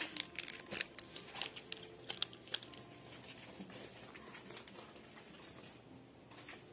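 Plastic-wrapped packets crinkling and clicking as they are handled, a quick run of small crackles for the first two to three seconds, then faint shop background.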